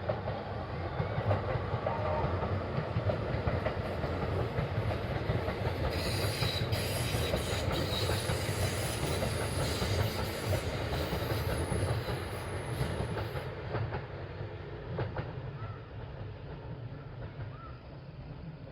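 Kintetsu electric train running past, wheels clattering over the rail joints, with a stretch of high hiss and clicks in the middle; the sound dies away over the last few seconds as the train moves off.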